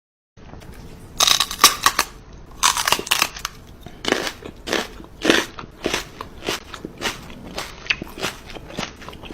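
Crunchy chewing: something hard and brittle is bitten and crushed between the teeth. It starts about half a second in, with a few quick runs of crunches, then settles into a crunch about every half second.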